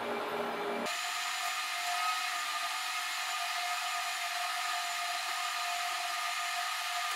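HP ProLiant DL380 G6 rack server's cooling fans running during boot: a steady whir with several high whining tones. About a second in, the deeper part of the sound cuts out suddenly, leaving a thinner whir.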